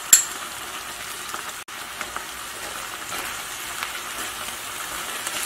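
Sliced onions and chopped chili peppers sizzling steadily as they stir-fry in a pan, with a sharp clack of a spatula against the pan just after the start and a few light scrapes as they are stirred.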